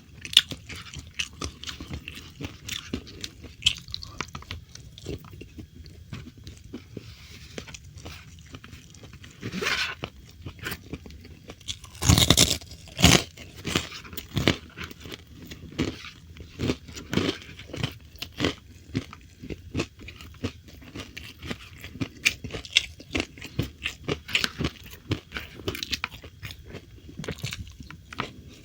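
Close-miked chewing of fried food: a steady run of wet, crackly chewing with crunchy bites, the loudest crunches coming in a burst about midway through.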